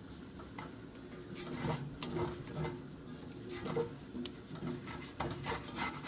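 Spatula stirring and scraping a roux of flour, butter and sautéed onion, celery and garlic across the bottom of a cast iron skillet: irregular scrapes and ticks over a light sizzle.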